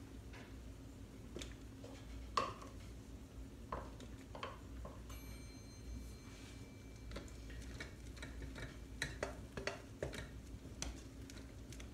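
A wooden spoon stirring and scraping in a stainless steel saucepan of melting mixture, making scattered light knocks and clicks that come more often in the second half. A thin high tone sounds for about two seconds about five seconds in, over a faint low hum.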